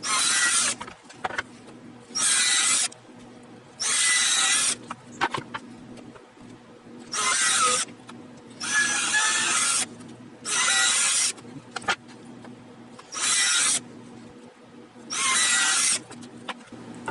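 Power drill run in eight short bursts, each under a second, drilling a series of holes, with small knocks between bursts.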